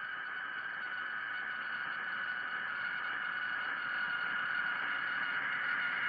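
Quiet ambient music: a sustained high drone of many held tones that slowly grows louder.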